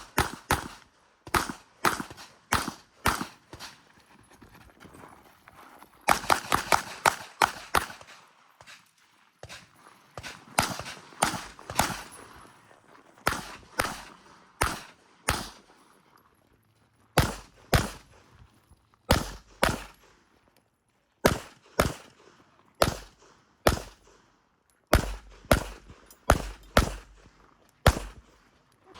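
Glock 26L 9mm pistol firing a USPSA stage: strings of quick shots, often two or more in fast succession, with short pauses between strings as the shooter moves between positions.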